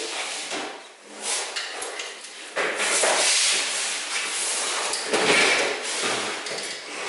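Steel sliding-door shell of a VW Bay Window campervan being lifted, turned over and set back down on a folding workbench. Scraping and rattling of sheet metal with a few knocks against the bench, louder from about a third of the way in.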